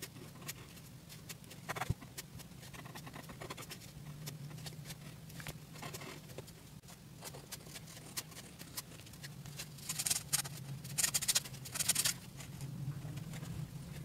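Fibre-tip pen (Monami Plus Pen 3000) scratching across paper in short strokes, with a quick flurry of strokes about ten seconds in. A low steady hum runs underneath.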